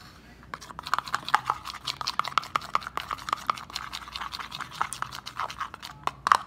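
Spoon stirring thick glue and food colouring in a plastic bowl. It makes quick, irregular scrapes and clicks against the bowl, starting about half a second in.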